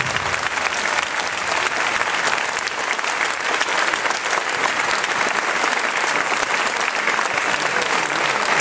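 Audience applauding: dense, steady clapping, with the dance music ending just as it begins.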